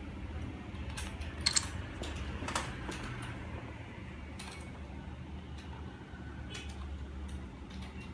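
A few light clicks and taps from a hand handling a small 360 camera, the sharpest about a second and a half in, over a steady low hum.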